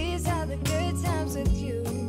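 Background Christmas pop song: a female vocal line wavering in pitch over a steady drum beat of about two strokes a second.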